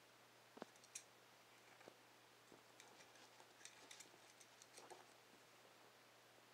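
Faint, scattered ticks and taps of a Rat Terrier puppy pawing and mouthing a sock and small toys, busiest in the middle; otherwise near silence.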